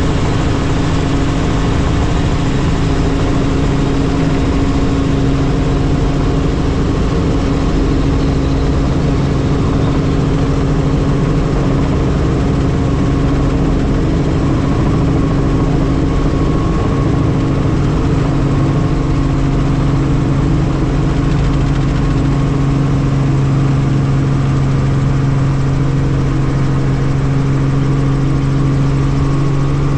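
Helicopter in flight: a loud, steady drone of engine and rotor with a low hum that holds one pitch, growing a little stronger in the second half.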